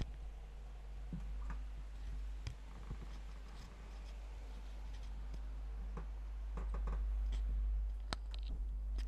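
Scattered light clicks and knocks of footsteps on old wooden floorboards over a low steady rumble.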